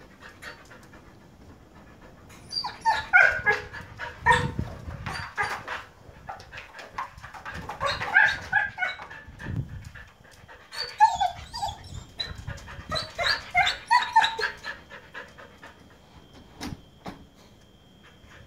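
Siberian husky vocalizing in four bouts of pitched, wavering calls with short breaks between them, then falling quiet for the last few seconds.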